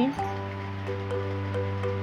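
Background music: sustained held chords over a steady low bass note.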